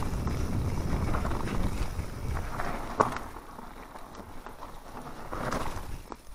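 Mountain bike descending a dirt forest trail: tyres rolling over dirt and dry leaves, the bike rattling, and wind rushing on the microphone. The rushing is loudest in the first half, with a sharp knock about three seconds in, after which it is quieter.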